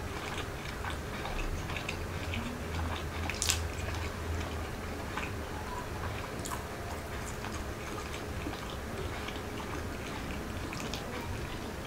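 Close-miked chewing of a mouthful of food: soft, scattered wet mouth clicks, with one sharper click about three and a half seconds in, over a low steady hum.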